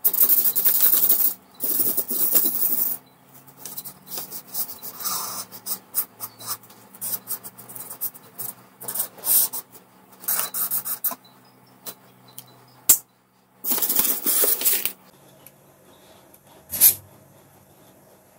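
Twin-tip alcohol marker scratching across paper in quick, scribbled hatching strokes: dense at first, then in scattered bursts, with another run of strokes about three-quarters of the way in. Two sharp ticks come near 13 s and 17 s.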